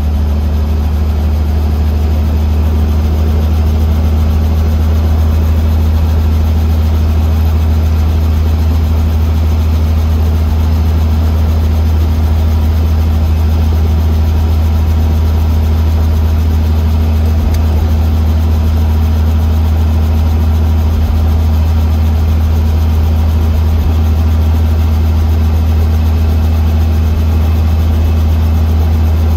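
Robinson R44 helicopter's piston engine and rotor running steadily at ground idle, a loud, even, low drone heard inside the cabin.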